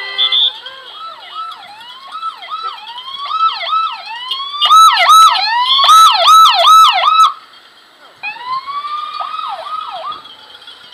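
California Highway Patrol sirens, several at once, in a fast rising-and-falling yelp of about three sweeps a second as the patrol vehicles pass close. The loudest stretch cuts off suddenly about seven seconds in; another siren starts a moment later, then trails off with a slowly falling wail.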